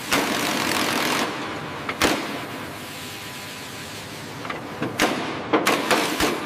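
Pneumatic impact wrench running in short bursts: a loud burst of about a second at the start, a sharp click about two seconds in, then a quick run of clicks and short bursts near the end over a steady noise.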